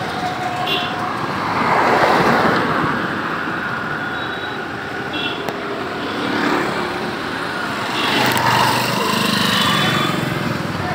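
Street traffic heard from a moving motorbike: engines of the bike and passing scooters and motorcycles running, with road and wind noise that swells twice, and a few short high horn toots.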